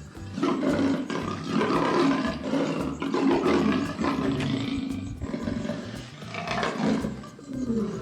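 Lion roaring in two long spells, the second ending in a falling note, over a background music track with a steady beat.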